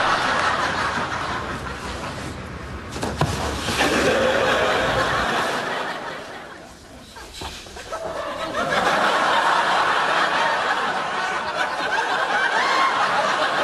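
Studio audience laughing in two long waves: the laughter dies down to a lull about six to seven seconds in, then swells again and carries on.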